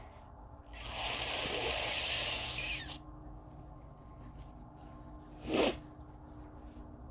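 A person blowing a congested nose: one long blow lasting a couple of seconds, then a brief, sharp second burst of breath through the nose about five and a half seconds in.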